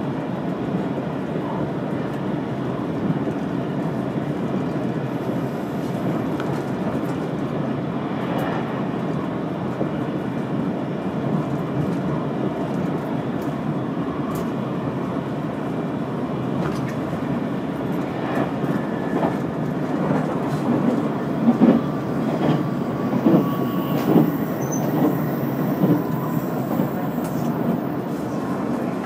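Limited express train running, heard from inside the carriage: a steady rumble of wheels on rails, with several louder knocks in the last third.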